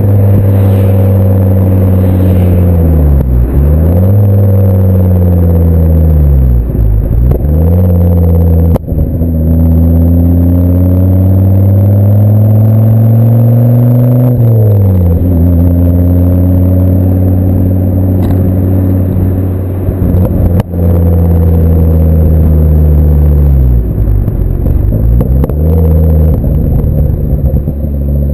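Ford Focus RS Mk2's turbocharged 2.5-litre five-cylinder engine driving through a full Milltek exhaust with no silencer and a sports catalyst. The engine note holds steady under load and drops sharply several times as revs fall, then climbs again.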